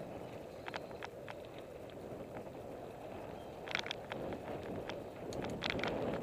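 Salsa El Mariachi Ti mountain bike rolling along a dirt singletrack: a steady rush of tyre and wind noise with scattered short clicks and clatters from the bike over bumps, clustered about four and five and a half seconds in.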